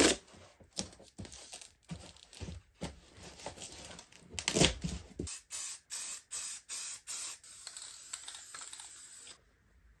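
Duct tape ripped off the roll at the start, then taps and rustles as the tape is pressed onto the wall. About halfway through an aerosol can of sandable filler primer hisses in short bursts, then in a longer steady spray that cuts off suddenly near the end.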